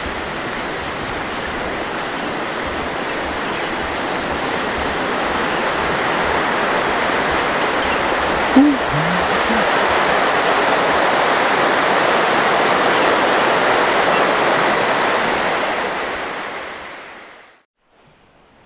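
Steady rush of flowing water from a waterfall or fast stream, growing a little louder midway, then fading out near the end.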